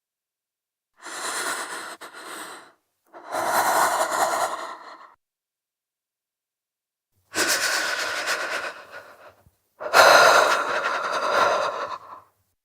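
A woman breathing hard through an open mouth, shivering with cold: two pairs of shaky, stuttering in-and-out breaths, with a pause of about two seconds between the pairs.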